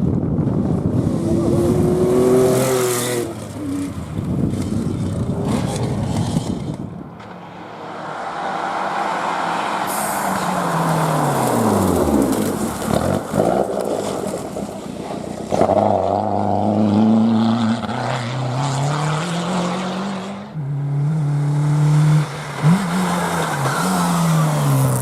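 Historic rally cars at full attack, engines revving hard and shifting through the gears. About halfway through, one passes close by and its engine note drops steeply as it goes past.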